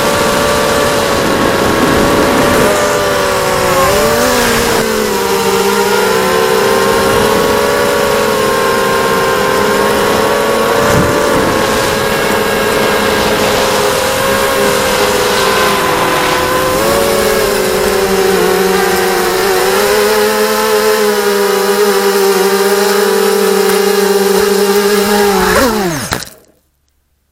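ZMR250 racing quadcopter's brushless motors and propellers buzzing at a steady high pitch, the tones wavering slightly with throttle. Near the end the pitch drops quickly and the sound cuts off as the motors spin down.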